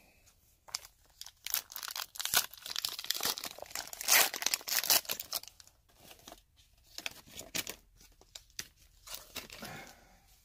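A hockey card pack's wrapper being torn open and crinkled by hand. The tearing is loudest about four seconds in, followed by softer, scattered crinkling.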